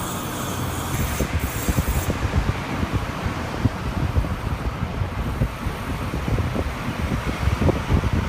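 2014 Mazda3 running, a steady low rumble with many short, irregular low knocks.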